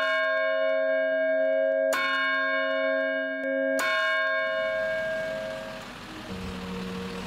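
Large bell tolling, struck about every two seconds, each stroke ringing on with a low hum beneath. About halfway through the ringing dies away into a swelling hiss and low held tones as music comes in.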